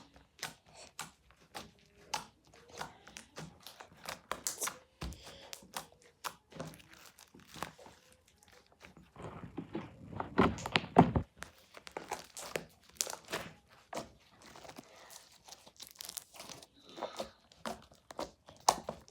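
Slime being worked by hand, giving a string of sharp crackling clicks and pops, densest and loudest about ten seconds in.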